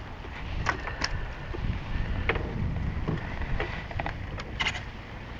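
Wind rumbling on the microphone, with about half a dozen short, sharp taps and clicks scattered through.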